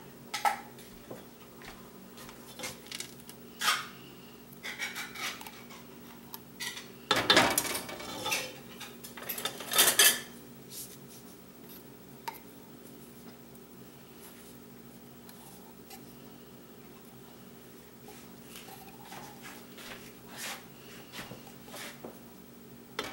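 Utensils knocking and scraping against a metal can and a nonstick pot as condensed milk is poured over chocolate chips and scraped out with a silicone spatula. The sounds come as scattered knocks, with two louder, longer scrapes about a third of the way in and lighter scraping near the end.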